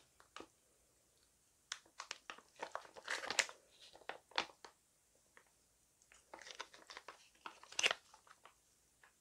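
Plastic sauce pouch crinkling and crackling in bursts as it is squeezed and wrung out by hand to empty the whole pack of red noodle sauce.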